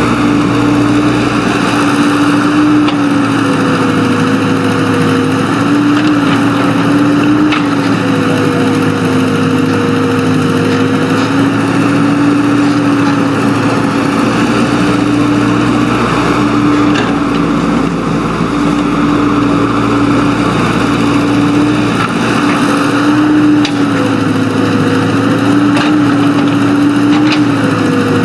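Earthmoving machine's diesel engine running steadily, its pitch dipping slightly a few times as the load changes, with a few faint knocks.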